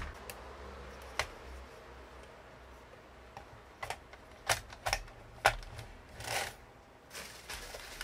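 Scattered sharp clicks and knocks of hard plastic and metal parts as the CDJ-1000MK2 jog wheel is fitted onto its platter assembly, the loudest about five and a half seconds in. A short rustling swish follows a moment later.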